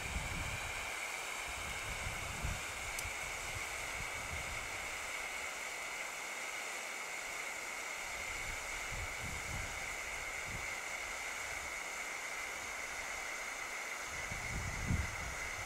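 A 35-year-old pyrotechnic red distress hand flare burning with a steady hiss. A few low wind rumbles on the microphone come and go.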